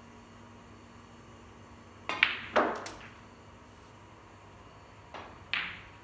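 Snooker balls being struck: the cue tip clicks on the cue ball, which then knocks hard into the black, and the black is potted with a short clatter in the pocket, all within about a second starting two seconds in. About five seconds in come two more sharp ball knocks, the second louder.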